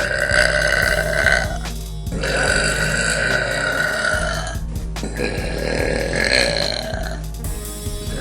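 A girl burping: three long, drawn-out burps in a row, each held about two seconds with a steady pitch, with short breaks between them.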